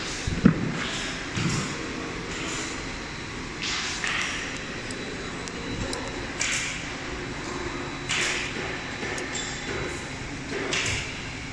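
Veneer peeling and clipping machinery working in a large hall: a sharp knock about half a second in, then short swishing noises every one to two seconds over a low steady hum.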